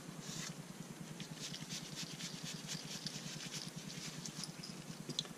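Soft, irregular rustling and scratching from nitrile-gloved hands handling a felt polishing disc and a small metal rod, over a low steady hum.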